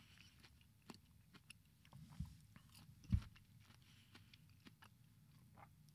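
Very quiet: faint scattered clicks with two soft low thumps, about two and three seconds in, the second the louder.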